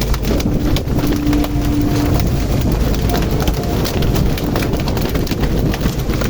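Rapid, irregular knocking and thudding on a fishing boat's deck over a steady low rumble from the boat's engine.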